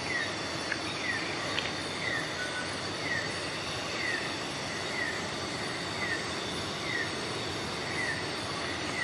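Night-time forest ambience: a steady hiss and high, thin insect drone, with a short falling chirp from a calling night animal repeated about once a second.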